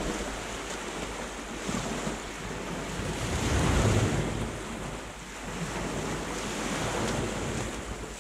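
Sea water washing and lapping, with wind buffeting the microphone in a low rumble; the sound swells to its loudest about halfway through.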